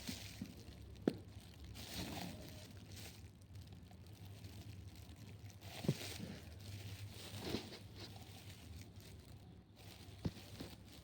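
Thin plastic crinkling and rustling, with a few sharp clicks and taps, as dye-kit gloves and packaging are handled; the crinkling is loud enough to be called "so freaking noisy".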